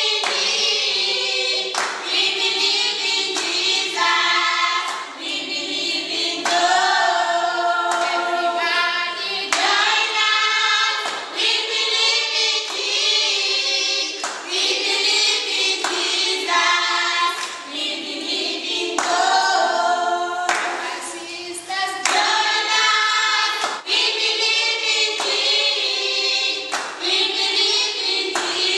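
A group of voices singing together, unaccompanied, with hand claps.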